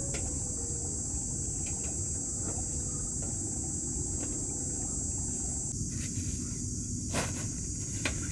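Outdoor ambience: a steady low rumble, with a high insect drone that drops away about two-thirds through. A few light knocks, the strongest near the end.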